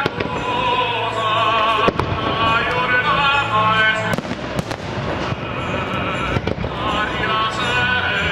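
Aerial fireworks bursting with several sharp bangs a second or two apart, over a loud music soundtrack of a singer with strong vibrato.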